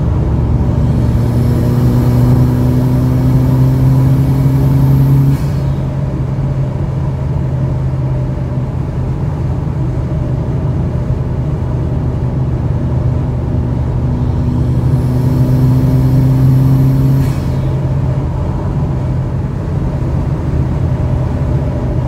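Car driving at highway speed: steady road and tyre noise with an engine hum that rises slowly in pitch and drops off suddenly, twice.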